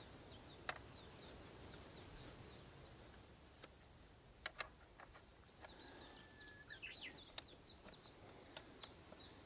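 Faint songbird twittering: quick runs of short, high, falling chirps, over quiet outdoor background. A few sharp clicks and knocks are scattered through it.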